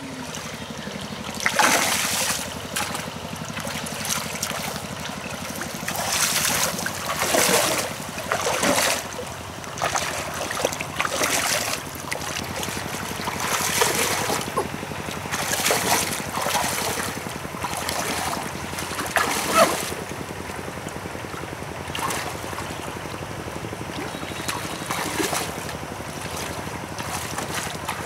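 Small engine-driven water pump running steadily, with repeated splashing and sloshing of someone wading and groping through shallow muddy water.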